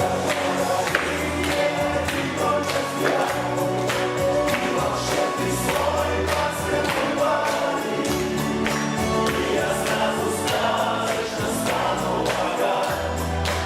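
Music playing: a song with a chorus of singing voices over a steady beat and bass line.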